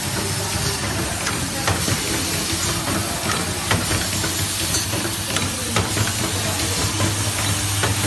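Round-ring clothes peg assembly machine running: a steady hiss and low hum, with sharp mechanical clicks about once or twice a second at an uneven spacing.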